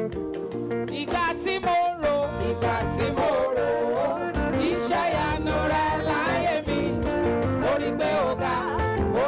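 Live Yoruba gospel worship music: held keyboard-style chords over a regular beat, with a voice singing a wavering, ornamented melody on top from about a second in.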